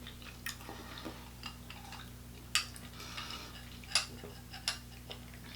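Quiet mukbang eating sounds: scattered sharp clicks and small clinks of food and takeout containers being handled and chewed, with a couple of louder clicks in the middle.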